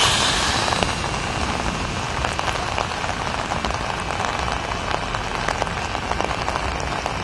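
Heavy rain falling on a wet street: a steady hiss dotted with many small drop ticks. A louder wash of hiss fades away in the first second.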